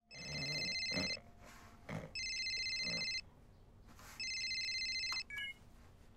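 Mobile phone ringing with an electronic trilling ringtone: three rings of about a second each, a second apart.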